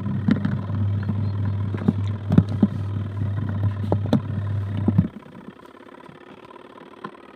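Adler AD8051 mini washing machine's wash motor running with a steady low hum and irregular clicks and knocks, then stopping after about five seconds. The on-and-off running is the intermittent agitation of its wool cycle.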